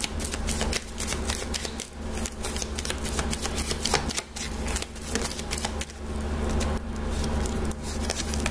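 A tarot deck being shuffled by hand: a dense, irregular run of quick papery clicks and slaps, over a steady low hum.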